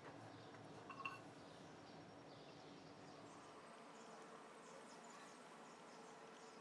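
Near silence: faint room tone, with a couple of small faint clicks about a second in.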